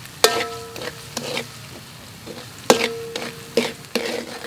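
A metal spatula stirring and scraping in a metal wok of minced garlic frying in oil, over a steady sizzle. There are two sharp knocks of spatula on wok that ring briefly, one just after the start and one a little past halfway, with lighter scrapes between.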